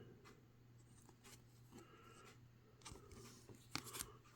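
Near silence with a few faint rustles and soft clicks of trading cards being handled, the clearest just before three seconds in and near the end.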